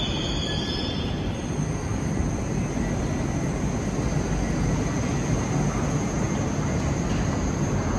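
A train's wheels squeal high in the first second or so, fading into a steady low rumble of the moving train.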